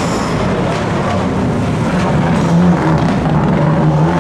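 Rally car engine running hard, its pitch climbing and dropping back in steps as it works through the gears.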